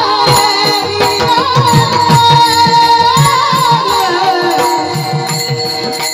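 Marathi devotional panchpadi: a singer holds long, wavering notes over a quick, steady drum rhythm with sharp metallic clicks.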